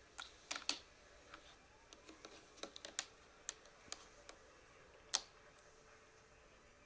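Scattered light clicks and taps of plastic toy playset parts being handled, with the sharpest click a little after five seconds in.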